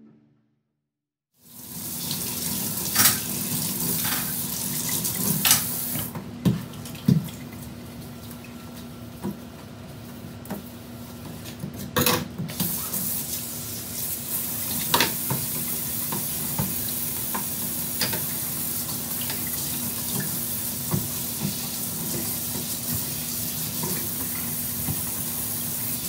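Kitchen faucet water running into a stainless steel sink during dishwashing, starting about a second and a half in, with scattered clinks and knocks of a pot and dishes against the sink.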